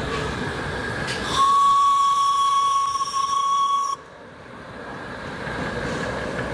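Miniature steam locomotive's whistle blowing one long, steady note for about two and a half seconds, then cutting off sharply. Under it and after it, the locomotive's steady hiss and running noise as it passes on the track.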